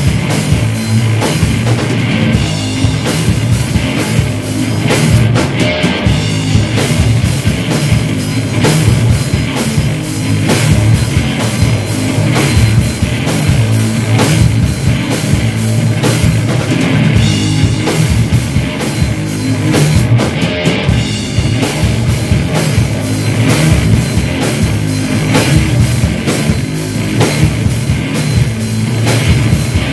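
Live rock band playing loud: electric guitars over a drum kit, with drum hits in steady rapid succession throughout.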